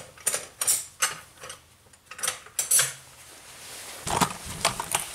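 Metal wrench clinking and knocking against the engine as it is fitted onto the camshaft pulley bolt to turn the cam: a string of separate sharp metallic clicks, thickest about four seconds in.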